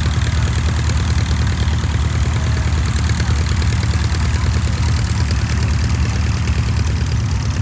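De Havilland Tiger Moth biplane's four-cylinder inverted inline engine idling on the ground, propeller turning, with a steady, fast, even beat of firing strokes.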